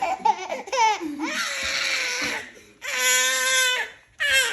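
A toddler's shrill squeals and whiny crying sounds in several bursts, one held on a steady pitch for almost a second near the end, then a falling wail.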